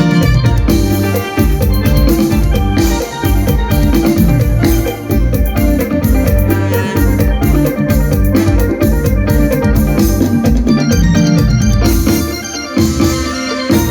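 Mor lam sing band playing an instrumental passage: an organ-like melody over a steady, driving drum beat and bass.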